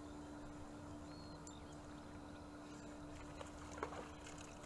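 Faint waterside ambience: water lapping under a steady low hum, with a few light clicks about three and a half to four seconds in.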